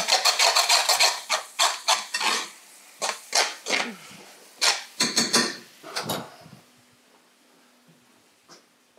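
Metal spoon scraping and knocking against a stainless-steel frying pan while stirring cheese spätzle, a quick run of clatters and scrapes that thins out and stops about six seconds in.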